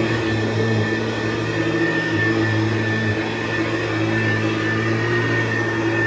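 1976 Hoover U4317 vacuum cleaner running steadily: an even motor hum with a high whine over it.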